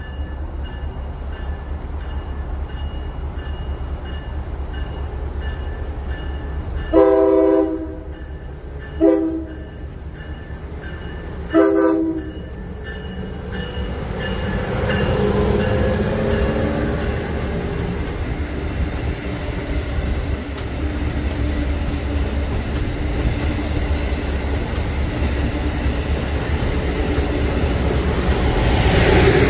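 EMD GP40-2 diesel-electric locomotive's 16-cylinder two-stroke engine running with a steady low rumble as the train approaches. Its horn sounds three times: a blast of about a second some seven seconds in, a short one, then a third just before twelve seconds. The engine grows louder about fifteen seconds in and again near the end as the locomotive comes by.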